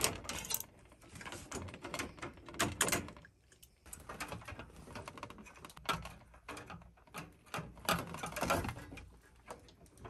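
Irregular clicks, knocks and scrapes of two adjustable wrenches breaking loose and backing off a brass flare nut on a Carrier TXV, then the nut being turned off by hand.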